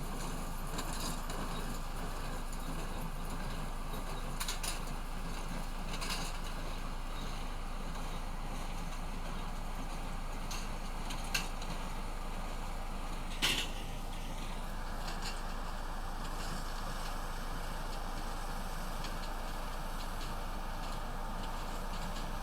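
Harvest machinery running steadily, with a few short sharp clicks or knocks, the loudest a little past the middle.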